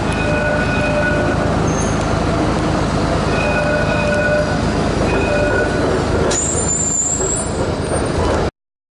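Electric tram running close by: a steady low hum with faint whining tones coming and going. About six seconds in there is a sharp clank, followed by a brief high squeal, typical of wheels or brakes on the rails. The sound cuts off abruptly near the end.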